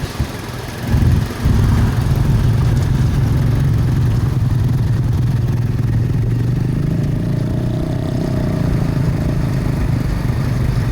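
A bus engine running steadily, with a short louder surge about a second in.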